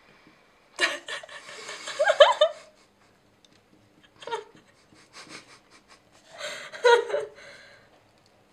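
Person laughing in several separate bursts with breathy pauses: a long burst early, a short one about halfway, and another near the end.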